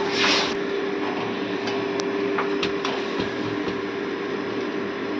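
A steady mechanical hum holding two tones, with an even hiss beneath it and a few light clicks about two to three seconds in.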